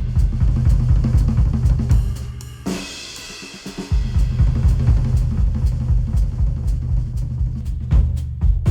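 Music with a full drum kit, snare, kick, cymbals and hi-hat, over heavy bass, played through headphones and picked up by microphones. The bass drops out for about a second around three seconds in, then the full beat comes back.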